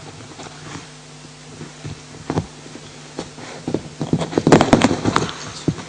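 Handling noise close to a microphone: scattered clicks and rustles, one a little after two seconds and a dense, louder cluster about four to five seconds in.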